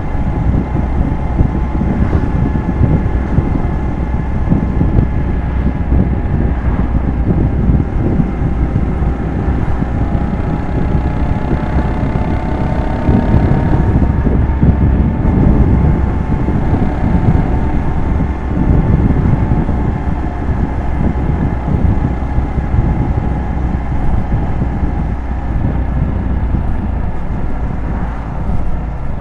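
Small single-cylinder motorcycle engine running at road speed under heavy wind buffeting on the microphone; the engine note rises a little around the middle and then settles back.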